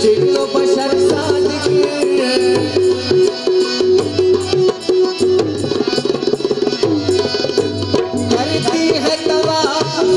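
Harmonium playing a wavering melody over a steady tabla rhythm, an instrumental passage with no singing.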